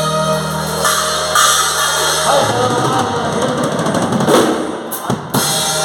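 Instrumental passage of a band song: a drum kit with bass drum and cymbals keeps the beat under a held bass line and melody, with no singing.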